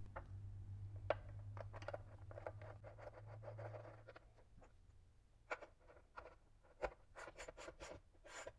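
A nut being set on the metal seat pan's stud by hand, with light scrapes and clicks, then a ratchet wrench tightening it, clicking in quick short runs over the last three seconds.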